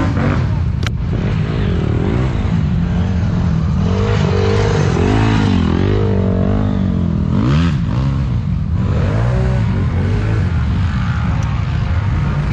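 ATV engine revving hard and unevenly under load in deep mud, its pitch swinging up and down several times. There is a sharp knock about a second in.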